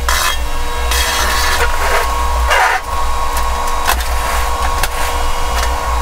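Power wheelchair's electric drive motors running as the chair turns on a concrete floor: a steady low hum with a constant whine over it, and a few brief scuffs.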